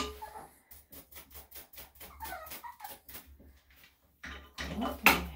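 Shih Tzu whimpering, with a run of quick clicks about five a second and a sharp knock near the end.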